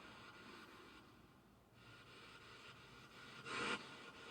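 Faint room tone, with one brief soft noise about three and a half seconds in.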